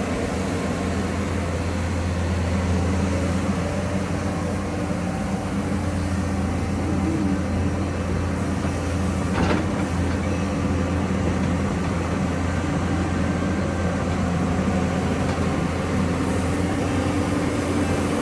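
Hydraulic excavator's diesel engine running steadily while the machine works, with a single knock about halfway through.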